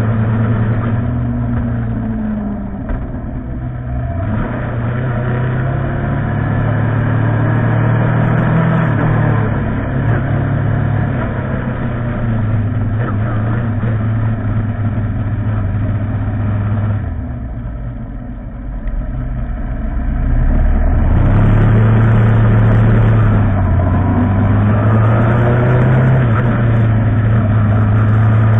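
Motorcycle engine running under way, its pitch rising and falling with the throttle and gear changes. It eases off a little past halfway, then picks up again louder as the bike accelerates.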